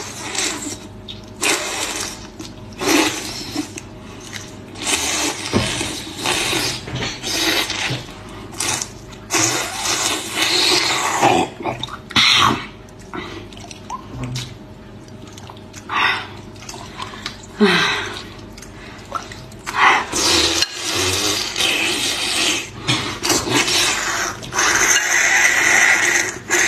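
Close-up wet slurping, chewing and squelching of a whole sauce-soaked octopus, eaten and pulled apart by hand, in irregular bursts with short pauses.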